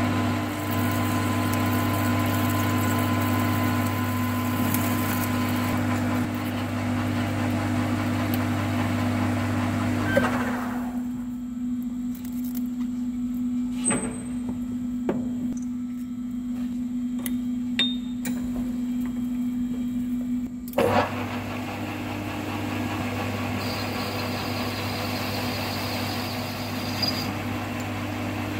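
Metal lathe running with a steady hum while turning a small stainless steel part. About ten seconds in the lathe stops, a few light clicks of handling follow, and about ten seconds later it starts up again.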